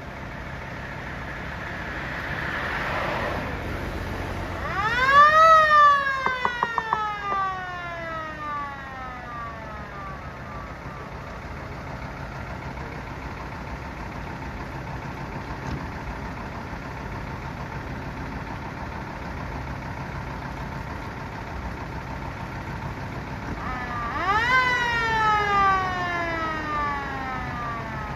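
Japanese fire engine siren sounding two long wails, about twenty seconds apart. Each one winds up quickly and then slowly falls away, over a steady idling engine, as part of a siren check.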